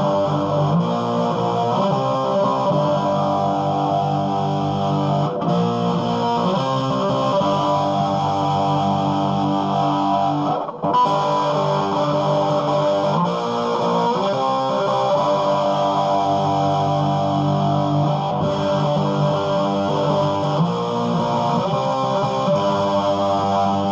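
Electric guitar played through a mid-1980s Marshall Lead 12 solid-state combo amp, set on the high input with the gain all the way up: distorted chords ring out and change every second or two, with two short breaks.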